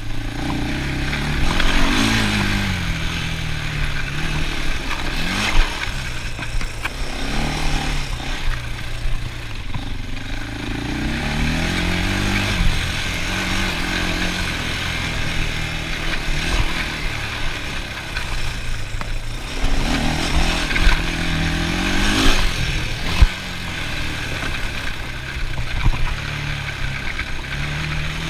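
ATV engine running under load while riding, its pitch rising and falling several times with the throttle, with rattling from the machine and a sharp knock about 23 seconds in.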